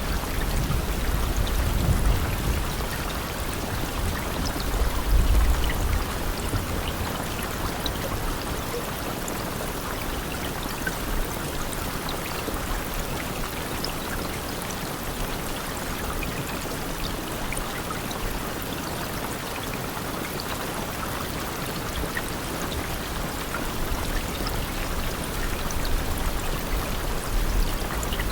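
Steady rainfall, an even hiss with individual drops ticking through it. A low rumble swells in the first few seconds and again near the end.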